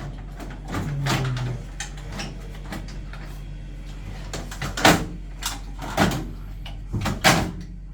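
Sharp knocks and clunks of hard parts being handled and fitted on a boiler, a few seconds apart, over a steady low hum.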